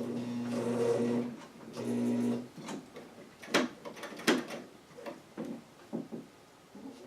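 Singer Stylist 418 sewing machine's motor humming at low speed, twice briefly, then stopping, followed by a string of irregular sharp clicks and knocks.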